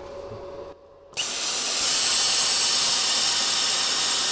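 ESAB Cutmaster 70+ air plasma torch cutting 40 mm mild steel plate at 70 A: the loud, steady hiss of the cutting arc and air jet, starting abruptly about a second in.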